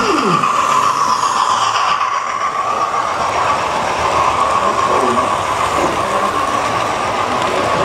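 Model train running past close by: the wheels of a rake of coaches roll over the track with a steady high whirr that does not let up.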